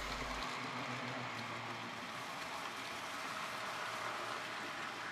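N gauge model train running along the track, a steady whirr and rattle of its wheels on the rails.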